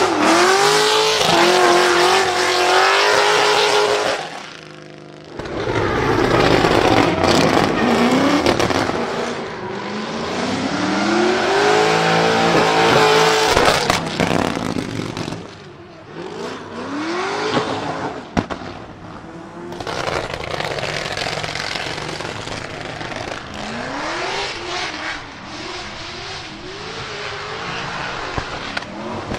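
LS7 V8 engine in a swapped Nissan 200SX pickup, revving and accelerating again and again, its note climbing and falling back several times, with a brief lull about four seconds in.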